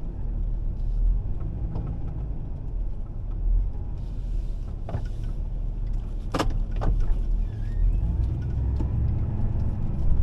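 A car driving slowly, heard from inside the cabin as a steady low road-and-engine rumble. A few sharp clicks come around the middle, the loudest about six seconds in.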